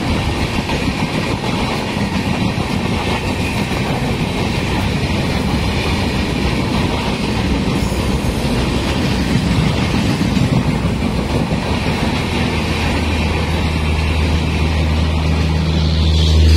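Indian Railways LHB passenger coaches passing close at speed: a continuous rush of wheels on rail with a rhythmic clickety-clack. In the last few seconds a steady low engine hum builds as the train's rear power car approaches.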